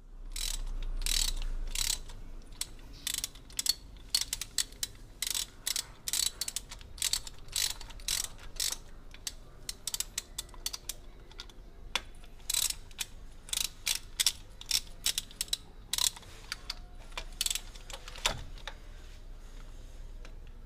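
Socket ratchet clicking as its handle is swung back and forth, loosening a car spark plug. The clicks are sharp and come in quick runs with short pauses, and there is a low hum in the first couple of seconds.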